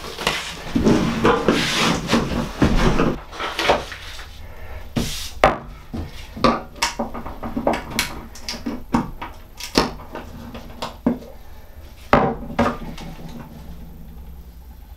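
Rubber gloves rustling as they are pulled on for the first few seconds, then scattered knocks and clinks of tools and objects handled on a wooden workbench, getting sparser toward the end.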